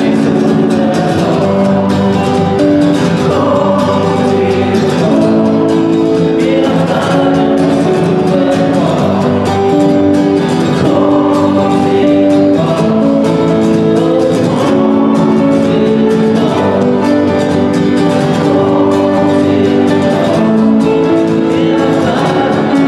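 Live song: a man singing lead while strumming an acoustic guitar, with a choir singing along behind him.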